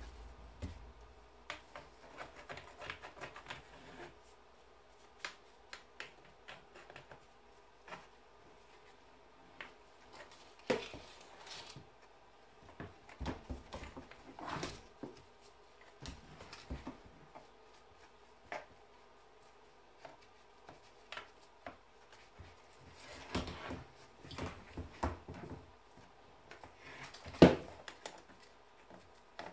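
Scattered soft clicks, taps and scrapes of a small applicator working whitening solution onto a deer skull, with gloved hands handling and turning the antlered skull; one sharper knock near the end.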